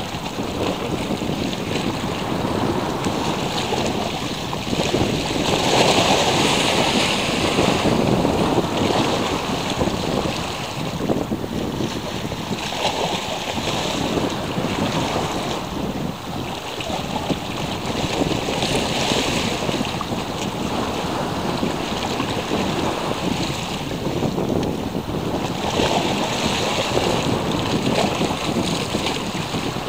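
Sea waves washing and breaking, swelling every six or seven seconds, with wind buffeting the microphone.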